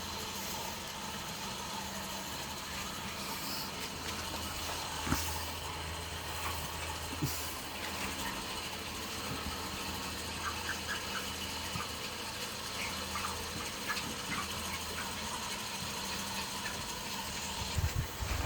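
A steady motor hum with a hiss, with scattered faint clicks and short high chirps from poultry.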